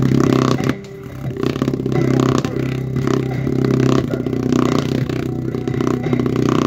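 Bass-heavy music playing loudly through a Sharp two-way speaker cabinet, with a strong steady low note. A foam block held and moved against the rear bass-reflex port adds scraping and rattling.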